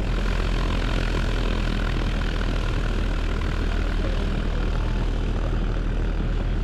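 Cessna 172's piston engine and propeller running steadily as the plane taxis on the ground.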